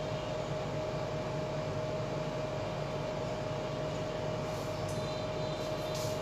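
Steady background hum with a constant mid-pitched whine, and a few faint scratches near the end.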